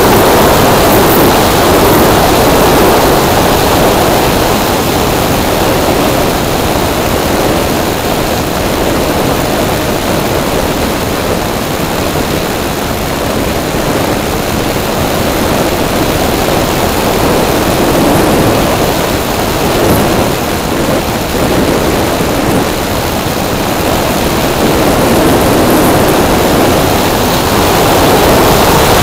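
Steady, loud rush of air over an onboard microphone riding on a large electric RC Piper PA-18 model airplane in flight, mixed with the noise of its spinning propeller; it eases off a little in the middle and builds again near the end, with no distinct motor tone.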